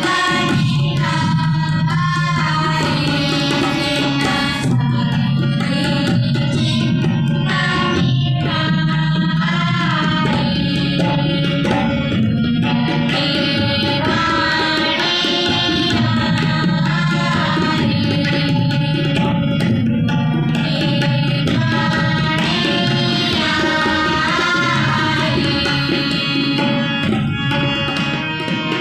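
Sikh shabad kirtan: a child's voice singing a hymn over harmonium, with a tabla pair keeping a steady rhythm throughout.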